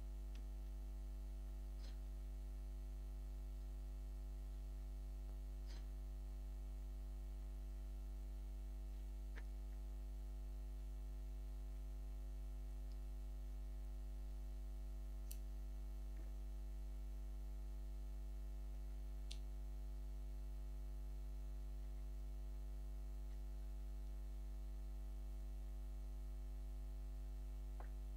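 Steady electrical mains hum with a few faint clicks now and then.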